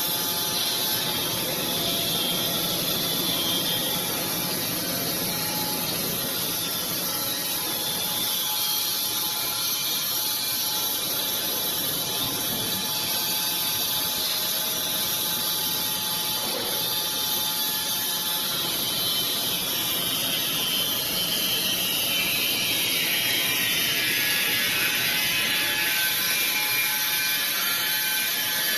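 Wood-Mizer industrial band sawmill machinery running steadily, a mechanical whir with a high whine that sinks in pitch over the last third.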